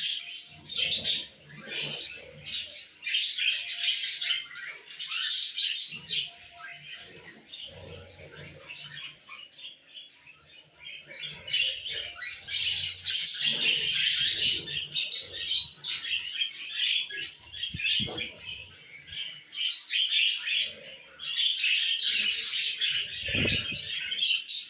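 Male budgerigar warbling: a fast, scratchy chatter of chirps and squawks in bouts of a few seconds, with short pauses between them, the song a male budgie gives while courting.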